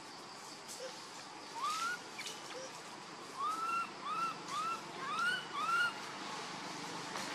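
Baby macaque crying in short, arched squeaky calls: a single call, then a quick run of about six in a row in the middle, roughly two a second.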